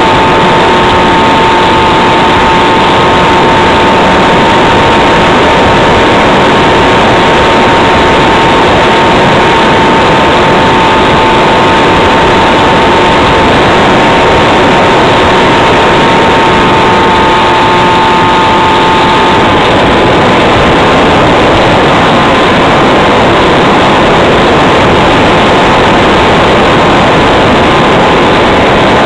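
The 330 W electric motor and propeller of an RC flying wing running in flight, heard from an onboard camera: a steady whine over a dense rush of wind and prop noise. About two-thirds of the way through, the whine shifts a little higher.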